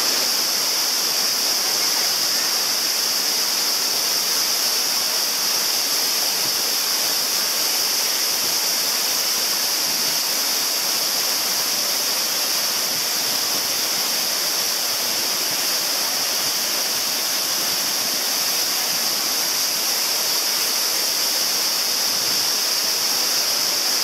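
Waterfall running: a steady, even rush of falling and churning water.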